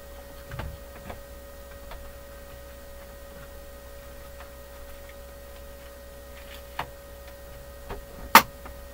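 Clear plastic parts-organizer boxes being handled and opened: scattered light plastic clicks and knocks, with one sharp clack near the end, the loudest. A faint steady hum runs underneath.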